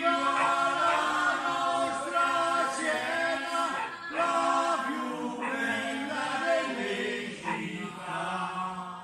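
Many voices singing together unaccompanied, a group of neighbours singing in unison from their windows along the street.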